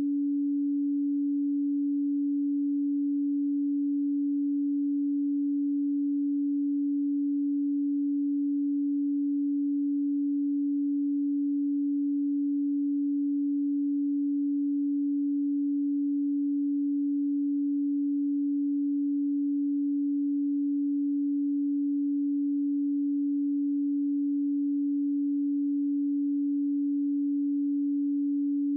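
A pure 285 Hz sine tone held at one steady pitch and level, with no other sound.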